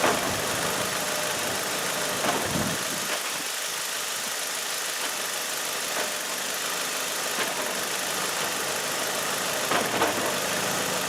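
Car engine running under load, with several sharp clunks a few seconds apart as the engine twists in its mounts, which the owner suspects is a bad motor mount.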